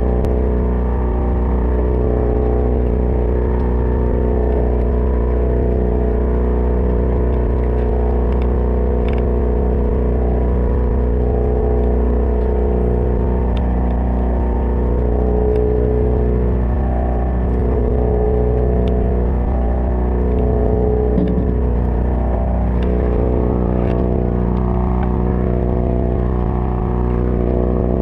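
Party boat's engine running steadily, a low, even drone with a stack of steady tones.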